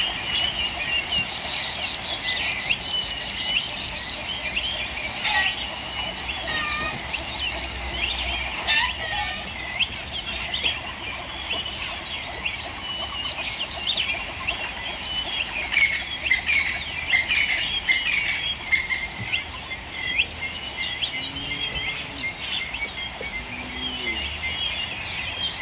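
Many small birds chirping over one another in a dense, continuous chorus of short, high chirps.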